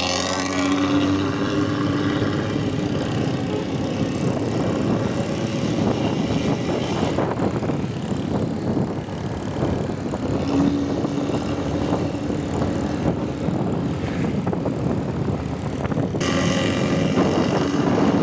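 Intercity bus engine running under throttle through a loud, growling modified exhaust ('knalpot ngorok'), a dense pulsing note. The sound turns brighter and hissier about 16 seconds in.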